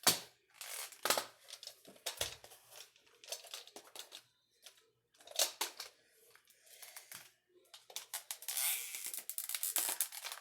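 Plastic parts of a cheap toy lightsaber hilt being handled and pried apart: a sharp crack right at the start, then irregular clicks, creaks and scrapes of hard plastic, with a denser stretch of scraping and rustling for about two seconds near the end.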